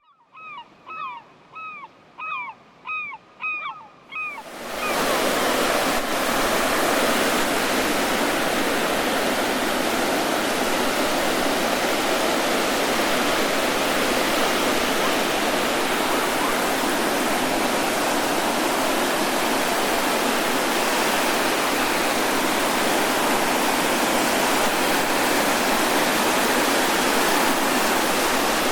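Ocean surf on a sandy beach: waves breaking and washing in as a steady rush of noise that starts about four seconds in. Before the surf, a string of short falling animal calls, about two a second.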